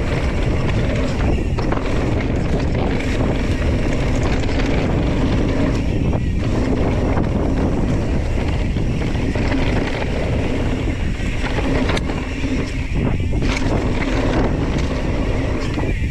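Wind buffeting the microphone as a mountain bike rolls along dry dirt singletrack, with steady tyre and trail noise underneath and a few sharp rattles from the bike.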